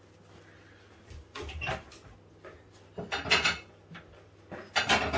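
Kitchen handling noises: three bursts of knocks, clatter and scraping as things are picked up and put down on a worktop, the loudest about three seconds in.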